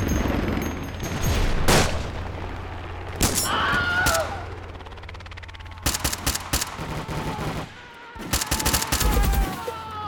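Cinematic sound-effects mix of gunfire: a sharp crack under two seconds in, then rapid rattling volleys about six and nine seconds in, over a low rumble with high whistling tones that glide in pitch.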